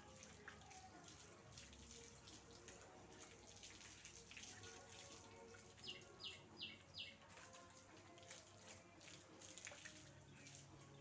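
Faint water from a garden hose splashing and dripping as a dog is hosed down. About six seconds in, a bird gives four quick chirps.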